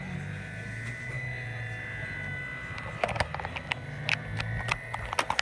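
3D printer running a print: its stepper motors hum and whine, stepping between pitches as the head moves. From about three seconds in, a run of sharp, irregular clicks sounds over the motors.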